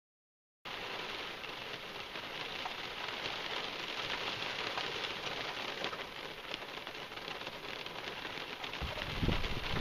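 Rain falling as a steady fine hiss of drops that starts suddenly about half a second in. Near the end, wind starts buffeting the microphone.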